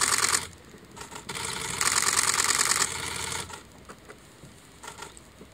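Camera shutters firing in fast continuous bursts of even clicking: one burst stops just after the start, a second runs for about a second and a half from around two seconds in, then a few single clicks follow.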